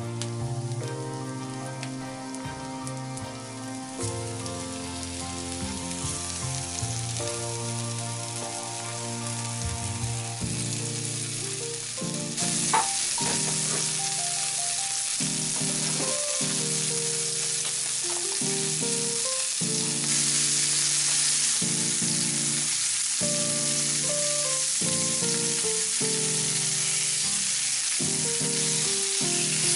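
Floured zander fillets sizzling as they fry in clarified butter in a pan. The sizzle grows louder partway through, with one sharp click, over background music.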